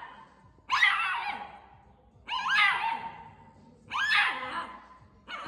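Shiba Inu puppy giving high-pitched yipping barks, three in a row about a second and a half apart, each rising then falling in pitch.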